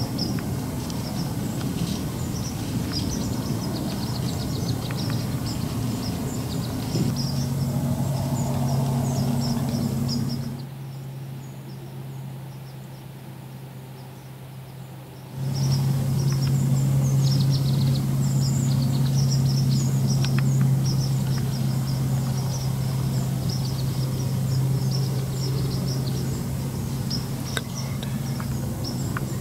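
Many small birds chirping over a steady low hum, with wind rumbling on the microphone in the first several seconds. The sound drops to a quieter stretch for about five seconds in the middle, then the hum and chirping return.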